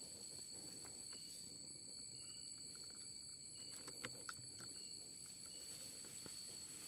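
Night insects in forest undergrowth, a steady high-pitched chorus of crickets or katydids, with two faint clicks about four seconds in.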